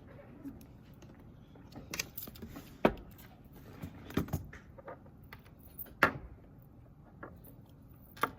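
Study materials being handled on a desk: a few scattered sharp clicks and knocks, the loudest about three seconds in and again about six seconds in, over a low room hush.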